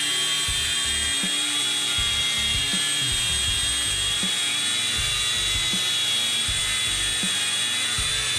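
DeWalt DCG416 FlexVolt brushless cordless angle grinder with a 4.5-inch wheel, on a 60 V battery, grinding steel bar under continuous load. It gives a steady high whine over the grinding hiss. Background music with a beat runs underneath.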